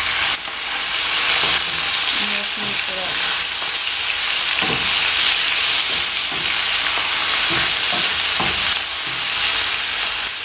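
Raw boneless chicken pieces sizzling in hot oil in a nonstick frying pan, with a steady hiss, while a wooden spatula stirs them, scraping and knocking against the pan now and then.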